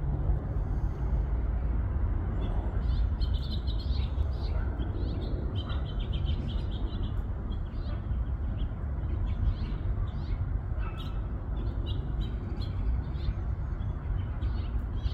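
Small birds chirping repeatedly in short, high calls, over a steady low rumble.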